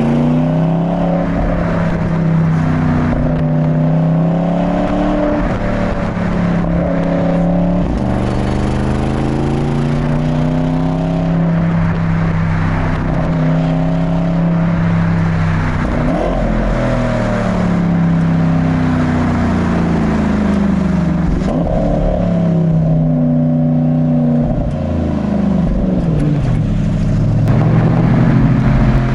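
Porsche Panamera GTS twin-turbo V8 with a pops-and-crackles exhaust tune, driven hard. The engine note climbs in pitch and drops back again and again as it accelerates and shifts through the gears, with a few brief sharp pops.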